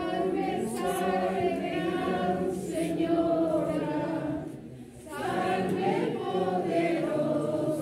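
A crowd of mourners singing together, unaccompanied, in two long sung phrases with a brief pause just past halfway.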